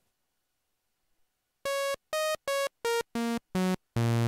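Waldorf Blofeld synthesizer playing its plain initial sawtooth patch, a bright buzzy tone: six short notes, mostly falling in pitch, then a longer, low note starting near the end.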